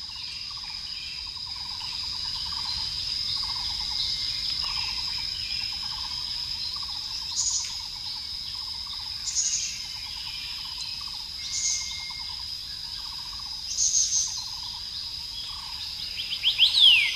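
Nature ambience: a steady high insect trill, lower pulsing trills about every second, and short bird chirps every couple of seconds, with a few quick falling whistles near the end.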